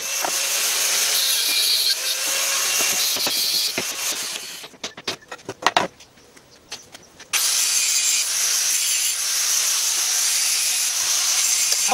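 A steady hissing noise stops suddenly about five seconds in and comes back just as suddenly about two and a half seconds later. In the gap, a few sharp knocks and clanks of tools being handled on a steel workbench.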